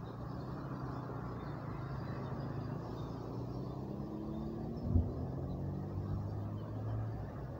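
A motor engine running steadily, its pitch rising a little midway, with a single thump about five seconds in.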